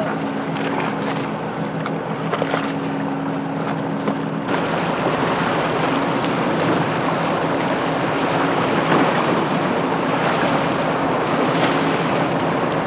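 Wind and water rushing past with a steady low engine hum underneath. About four and a half seconds in the sound changes abruptly to a louder wash of wind buffeting the microphone and water splashing, with the hum much fainter.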